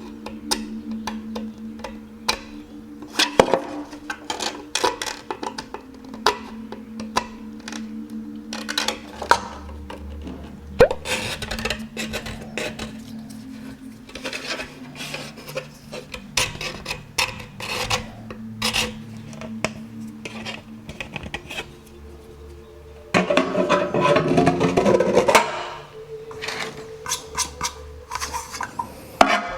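Many light clicks and knocks of small hard parts being handled and fitted together, with a louder stretch of rubbing or scraping about 23 seconds in, over quiet background music.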